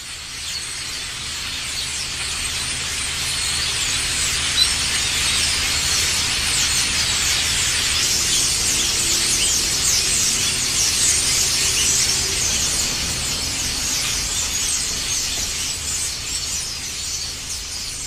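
A flock of birds giving a dense, continuous chatter of many high-pitched calls, swelling in over the first few seconds, with one brief sharp tick about four and a half seconds in.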